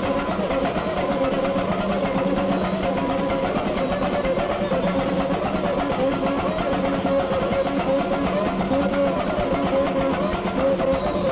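Samba music: a dense, steady mix of rapid percussion and sustained wavering tones.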